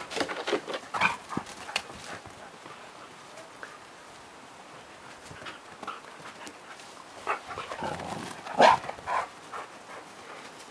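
Siberian huskies playing close to the microphone, their sounds coming in short clusters. There are several in the first two seconds, then a louder stretch around seven to nine seconds in, loudest at about eight and a half seconds.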